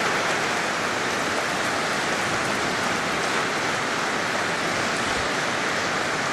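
Large audience applauding steadily in a packed hall.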